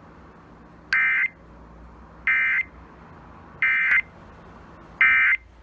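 Emergency Alert System end-of-message data bursts: four identical short, buzzy electronic bursts about 1.4 seconds apart, marking the end of an alert broadcast.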